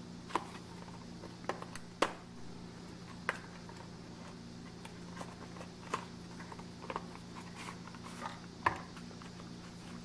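Cardboard knife box handled and opened by hand: scattered taps, clicks and light scrapes as the inner tray is slid out of its sleeve, over a steady low hum.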